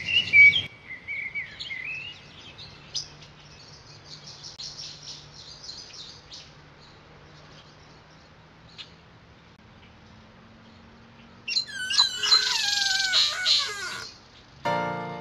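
Birds chirping and twittering, fading to faint calls. About twelve seconds in comes a louder burst of calls that fall in pitch, lasting a couple of seconds.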